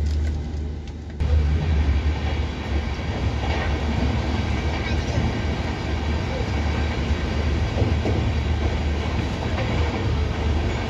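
Double-decker AC chair car coach running at speed, heard from inside: a steady rumble and rush of wheels on the rails. The noise grows suddenly louder about a second in.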